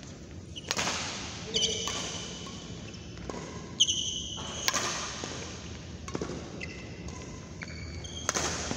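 Badminton rally: racquets strike the shuttlecock about six times, a sharp crack every second or two. Short high squeaks from court shoes on the floor come between the shots.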